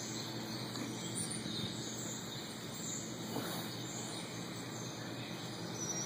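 Steady outdoor background noise with a few faint, scattered bird chirps.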